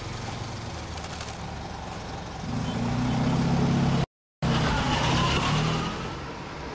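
Fiat 500's air-cooled two-cylinder engine driving off, getting louder about two and a half seconds in as it pulls away. The sound cuts out for a moment just after four seconds, then the engine runs on with a short rising whine before dropping back near the end.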